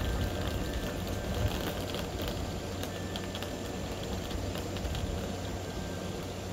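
Wind rumbling on the microphone outdoors, an uneven low rumble, with faint high ticks and chirps over it.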